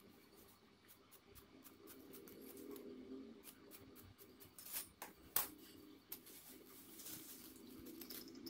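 Large tailoring scissors cutting through lining cloth: a run of quiet, crisp snips of the blades, with two louder, sharper snips about five seconds in.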